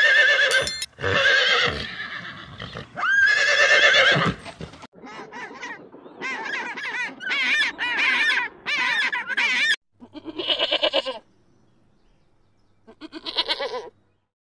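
A series of short, high-pitched animal calls with a quavering pitch, one after another, broken by sudden cuts; the longest run comes in the middle.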